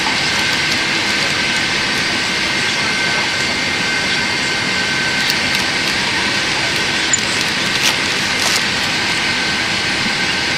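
Steady cabin noise inside a Boeing 747-8 airliner: an even rushing hiss with a faint high steady tone. A few faint light clicks of cards being handled in the seat-back pocket come near the end.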